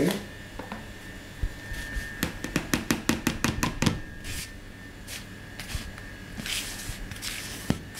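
Flour tipped from one plastic mixing bowl into another, with a quick run of sharp taps about two seconds in as the bowls knock together, then a hand rustling and stirring through the dry wheat and rye flour.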